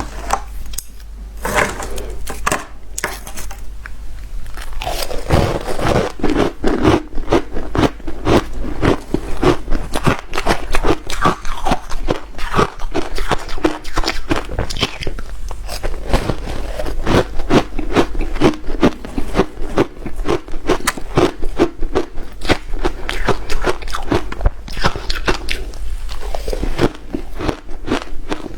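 A person biting and chewing hard shaved ice: a dense run of sharp crunches, several a second, lighter at first and heavier from about five seconds in.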